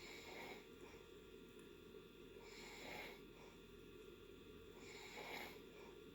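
A person snoring faintly in deep sleep: three breaths about two and a half seconds apart, over a steady low background hiss.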